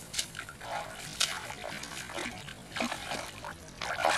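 A hooked fish thrashing at the surface of a pond, making irregular water splashes, the loudest near the end.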